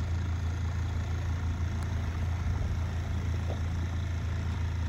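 Small outboard motor running steadily at a low, even drone, pushing a Compac 16 sailboat under power with its sails furled, with water rushing along the hull.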